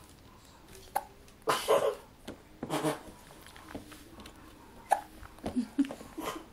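Hiccups: several short, sudden hiccup sounds at uneven gaps of about a second or more.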